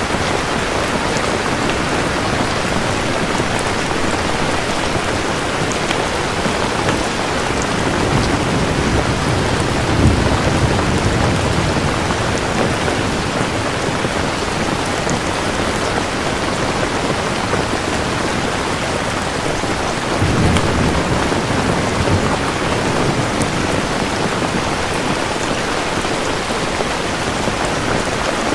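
Steady rain in a thunderstorm, with a low rumble of thunder about ten seconds in and another about twenty seconds in.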